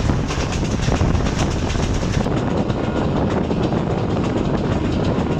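Passenger train coach running at speed, wheels clattering steadily on the rails, heard from an open coach window.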